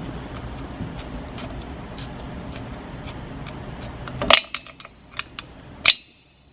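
Old wheel weights being pried and scraped off a wheel rim with a metal tool: quick, light metallic clicks and scrapes, with two louder clacks in the second half.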